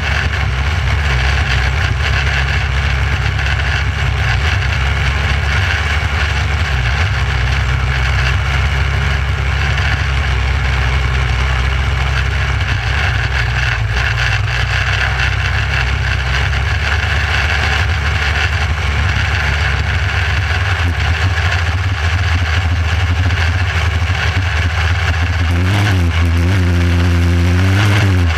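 Micro sprint car's engine running hard at racing speed, heard close from on board. The note holds steady for most of the time, then near the end the pitch swings quickly up and down several times.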